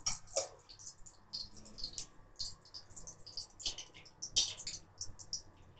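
Ghee sizzling and spitting in the bottom of an aluminium kadai, a steady run of irregular small crackles. Cashew nuts dropped into the hot ghee about midway set off a couple of louder bursts of sizzling.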